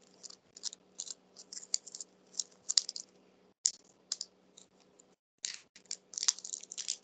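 Plastic candy wrappers and small plastic pieces being handled, crinkling and clicking in irregular short crackles.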